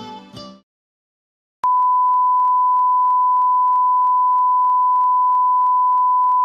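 A steady, pure single-pitch test tone, the line-up tone that goes with broadcast colour bars, comes in about a second and a half in and holds unchanged for about five seconds. Plucked-string music fades out at the very start, before a short silence.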